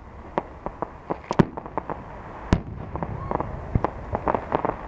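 Fireworks display going off: an irregular run of sharp bangs and pops over a steady crackle, with the loudest bangs about a second and a half and two and a half seconds in, and a thick cluster of pops near the end.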